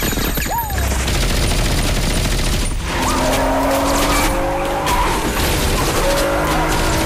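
Rapid automatic gunfire, with bullets striking the road and short ricochet whines, and from about three seconds in a BMW Z4 roadster's engine revving higher as the car accelerates hard.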